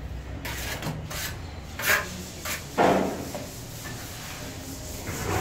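A steel trowel scraping and scooping tile adhesive: several short scrapes, the loudest and longest about halfway through.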